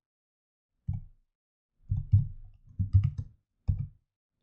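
Keystrokes on a computer keyboard, typed in four short bursts with brief pauses between them.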